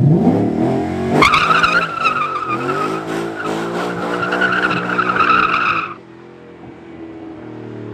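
Car engine revving up, then the tyres squealing loudly in wheelspin for about five seconds, a wavering high screech that cuts off suddenly, leaving the engine running quietly.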